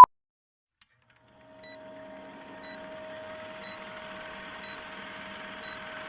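Steady electronic hum with a fixed mid-pitched tone and a soft hiss, starting after a click about a second in, with a short high beep about once a second.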